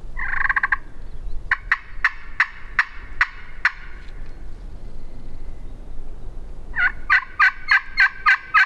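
Hunter's wooden turkey call yelping like a hen turkey: one short drawn note, then a run of about eight evenly spaced yelps, about four a second. A second, quicker run of yelps starts near the end.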